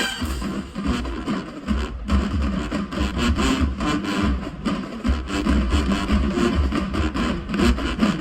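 Marching band drumline playing a percussion break: rapid snare and cymbal strikes over repeated low bass-drum hits, with the horns silent.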